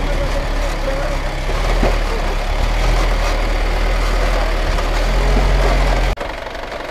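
Motor vehicle engine running with a steady low rumble. About six seconds in the sound breaks off suddenly, and a quieter engine sound carries on.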